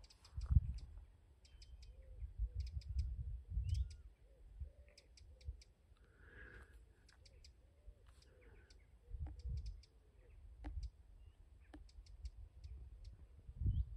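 Small birds calling with short, high ticks, scattered irregularly, with a few faint rising whistles among them. Bursts of wind rumble on the microphone come and go.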